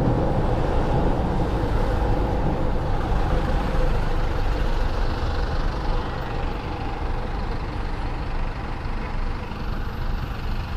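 Ride noise aboard a Honda SH150i scooter in city traffic: steady wind rush on the microphone over the scooter's engine and the traffic around it, easing a little past halfway.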